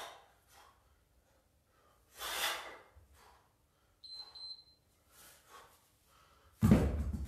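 Hard, rhythmic breathing of a kettlebell lifter mid-set: sharp exhalations every couple of seconds. A short high beep sounds about four seconds in, and a louder, deeper burst comes near the end.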